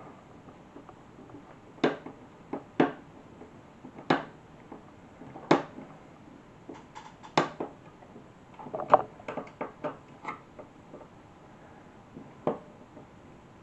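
Irregular sharp clicks and taps of a screwdriver working the screws of the circuit board, and of hands handling the plastic case of an Atari 410 cassette program recorder. About a dozen separate knocks, with a short flurry about two-thirds of the way through.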